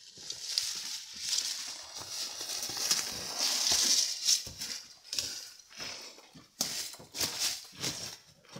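Footsteps on loose limestone rubble and gravel, first with rustling through scrub, then as separate uneven crunching steps in the second half.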